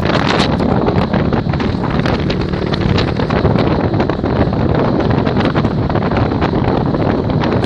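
Wind buffeting the microphone: a loud, steady rush with many small crackles.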